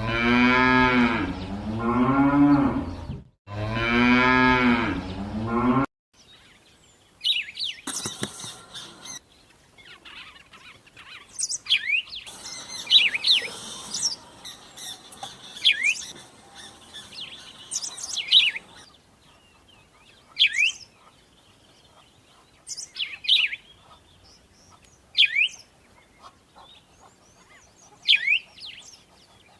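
Two long cow moos, one after the other, at the start. Then short, sharp bird chirps repeat about every two seconds over a faint hiss.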